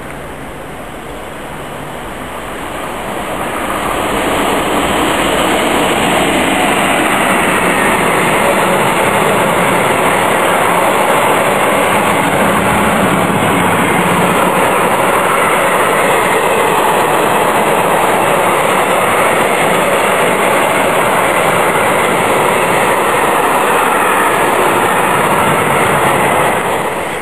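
Freight train passing close at speed: the sound builds over the first few seconds as the locomotive approaches, then a steady loud rumble and clatter of wagon wheels on the rails, dropping away sharply near the end as the last wagon passes.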